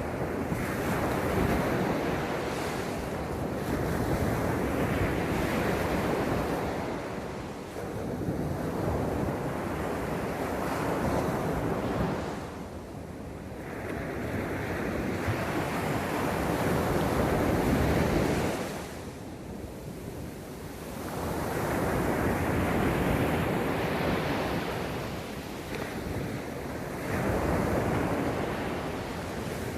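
Sea waves breaking and washing up on a beach, surging and easing in long swells about every six seconds.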